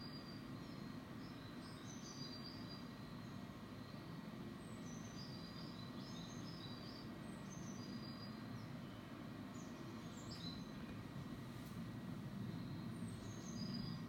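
Small songbirds chirping in short high-pitched phrases, played back from a bird video through computer speakers, over a low steady rumble.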